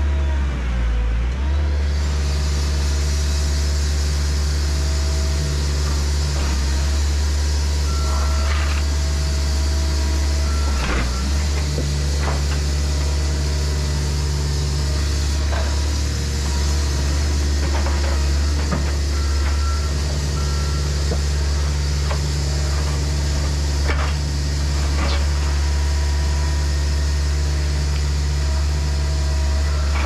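Diesel engine of heavy equipment running steadily under load while the Beak concrete removal attachment works a concrete slab, with scattered knocks and scrapes of concrete breaking and shifting. A few short beeps sound twice, around ten and twenty seconds in.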